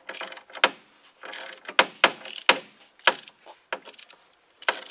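Socket ratchet working an oil filter canister cap loose: short runs of ratcheting broken by several sharp clicks at irregular intervals, as the handle is swung back and forth.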